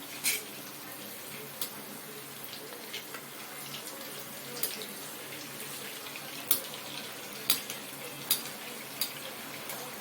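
Stuffed dough dumplings deep-frying in hot oil: a steady sizzle with scattered sharp pops and crackles.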